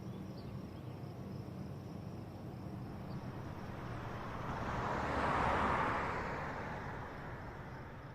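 Outdoor ambience with a vehicle passing: a steady background hiss swells as it goes by, loudest about five and a half seconds in, then dies away.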